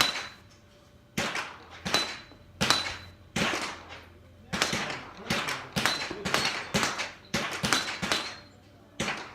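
Pistol shots in quick succession, about a dozen over several seconds, each a sharp crack with a short ringing tail.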